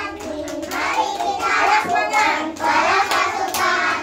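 A group of young children singing together, with hands clapping along.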